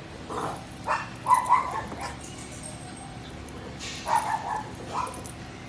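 Two small dogs, a miniature schnauzer and a dark short-haired dog, play-wrestling and giving short yips and barks in brief clusters. One cluster comes near the start, another from about one to two seconds in, and a last pair around four and five seconds in.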